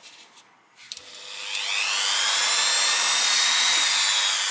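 Dremel rotary tool switching on about a second in, its high whine rising as it spins up, then running steadily, dipping slightly near the end. It is polishing the inside of a corroded brake caliper's cylinder bore so that the piston moves freely again.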